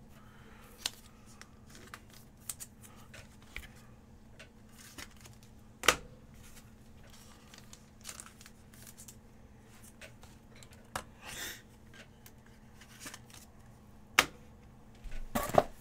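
Faint handling noises as trading cards and their packaging are sorted and moved: soft rustles and scattered light clicks and taps, a few sharper knocks about six seconds in and near the end, over a low steady hum.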